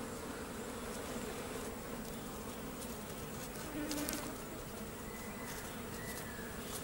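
Steady buzzing of flying insects at a waterhole, with one buzz swelling briefly about four seconds in.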